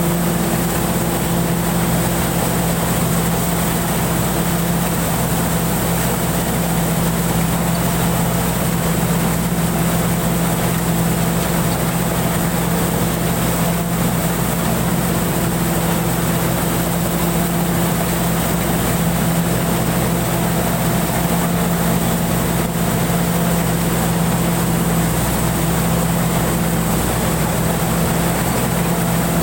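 Rice combine harvester running steadily under load, heard from the driver's seat: an unbroken engine and machinery drone with a steady hum and a faint high whine.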